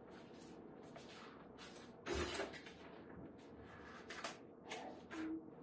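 Pages of a paper instruction booklet being leafed through, a series of soft rustles and flicks with a louder rustle about two seconds in.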